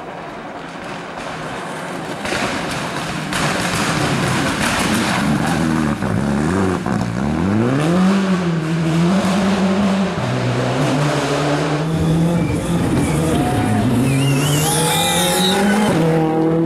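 Rally car engine growing louder as the car approaches at speed. About seven seconds in the engine note drops sharply and climbs again as the driver lifts and changes gear, then it pulls hard and steadily. Near the end there is a brief squeal of tires.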